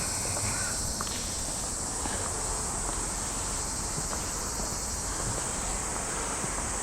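A chorus of cicadas buzzing steadily at a high pitch in summer, over a low outdoor rumble.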